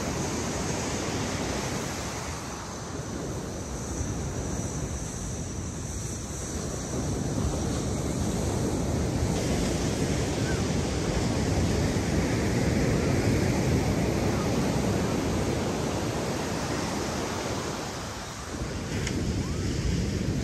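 Ocean surf washing on the beach, swelling and easing, with wind blowing on the microphone.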